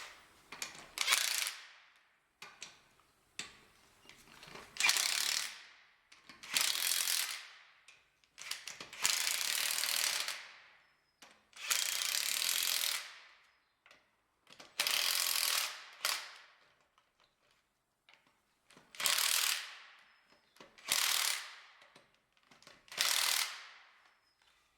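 A power tool, likely an impact wrench or driver, running wheel bolts on a BMW E46 in about ten short trigger bursts of about one to two seconds each. Each burst is a rapid ratcheting clatter.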